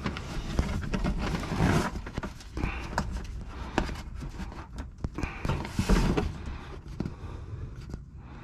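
Irregular clicks, knocks and rustling scrapes of hands working on a plastic underbody panel and its push-pin fasteners, with two busier bursts of handling about a second in and again near six seconds.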